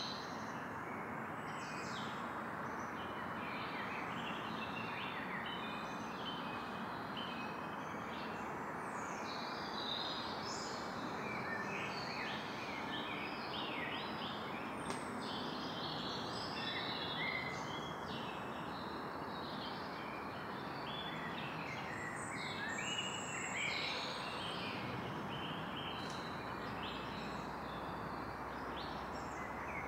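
Evening forest ambience: many birds chirping and calling, short scattered calls overlapping throughout, over a steady rushing background.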